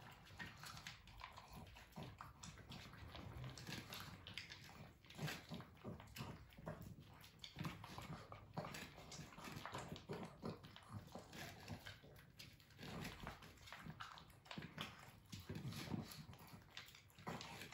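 A pug and a Pekingese eating dry kibble from plastic bowls: faint, irregular crunching and clicking of kibble and teeth against the bowls.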